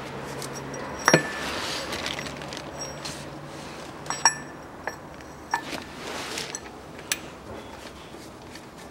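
Metal parts clinking as drive-belt pulleys and their bolts are handled and fitted onto the front of an engine: about five sharp clinks, the loudest about a second in, some with a short metallic ring.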